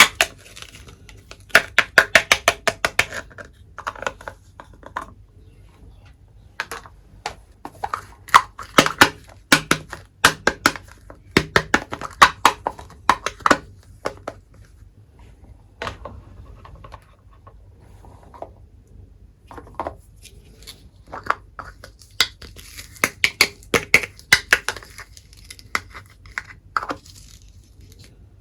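Quick runs of small clicks and taps with some crinkling: tiny toy kitchenware and its packaging being handled and set down.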